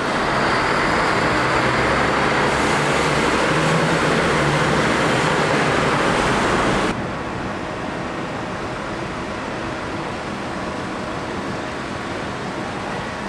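Diesel coach engine pulling away under a covered bus station, a loud, echoing rush of engine and exhaust noise with a low drone. About seven seconds in it cuts off abruptly to the quieter, steady hum of a bus engine moving slowly.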